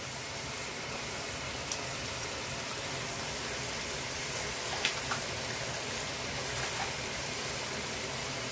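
Vegetables and spinach sizzling and simmering in a pan: a steady hiss, with a few light clicks.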